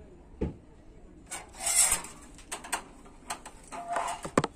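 Rustling, scraping and sharp clicks around a wire-mesh pigeon cage, the loudest a noisy rustle about two seconds in and a cluster of knocks near the end, with a short pigeon coo just before the end.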